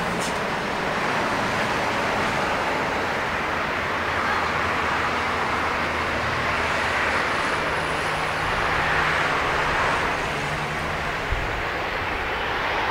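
Bombardier Dash 8 Q400 turboprop at takeoff power on its takeoff roll: a steady, loud rushing drone from its two Pratt & Whitney PW150A engines and six-bladed propellers, with a low steady hum underneath through the middle of the roll.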